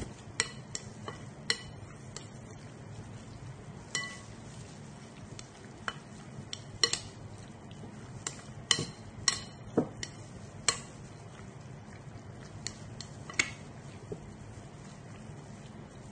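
Raw seasoned prawns being mixed by hand in a glass bowl: irregular light clicks and knocks against the glass, some ringing briefly.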